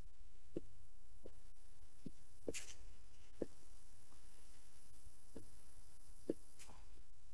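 Soft, irregular low thumps, about one a second, over a steady low hum of room tone; a couple of the thumps are sharper clicks.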